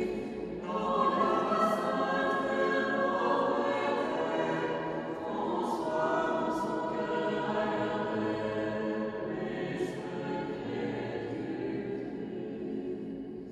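Mixed choir singing a liturgical chant in harmony, with long held notes. The singing grows quieter near the end.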